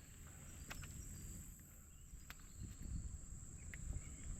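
Faint, steady high-pitched drone of insects, with a few sharp clicks about a second and two seconds in over a low rumble.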